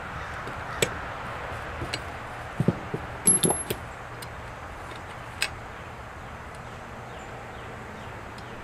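Small steel parts of a Martini-Henry rifle's action clicking and clinking against each other as they are fitted by hand: scattered light clicks, with a quick run of clinks around three seconds in.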